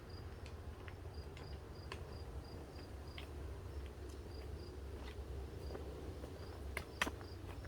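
An insect chirping steadily outdoors, a short high note repeated a few times a second. A few light clicks, such as footsteps or handling, come in between, the loudest about seven seconds in.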